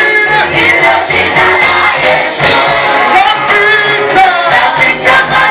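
Praise and worship music: voices singing a melody over instrumental backing with a bass line that moves in steps.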